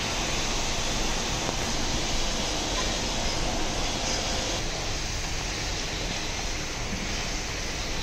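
Steady rushing background noise with no distinct events, easing slightly about halfway through.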